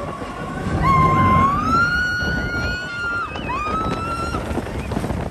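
Music: a high melody of long held notes that slide up between pitches and drop away at their ends, over a steady low rumble.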